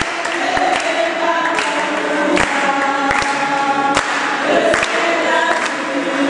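A congregation singing a hymn together in held notes, with scattered hand claps.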